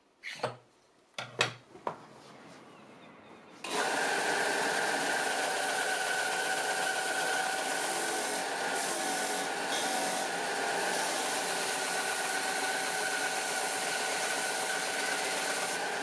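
A few light knocks, then about four seconds in a Cocraft 4"×36" belt and disc sander begins and runs steadily with a whine, grinding a block of colored pencils set in epoxy resin against the sanding belt.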